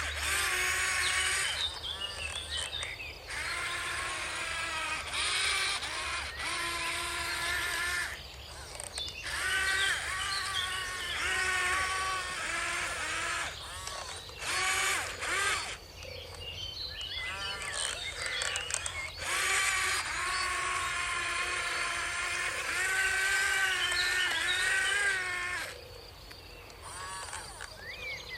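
Small electric motors and gearboxes of a remote-control toy excavator whining in runs of a few seconds with short pauses, the pitch rising and falling as the controls are worked.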